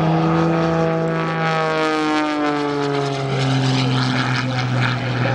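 Propeller aircraft flying past. Its engine and propeller note holds steady, then drops in pitch about two and a half seconds in as it goes by.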